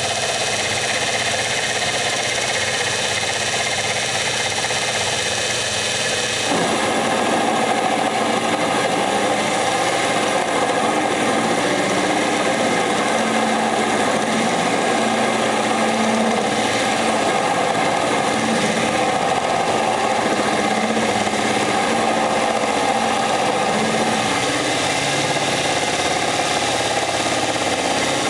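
Metal lathe running steadily while boring out a drill press pulley with a 9/16 end mill. About six and a half seconds in, the sound grows fuller and harsher and then holds steady.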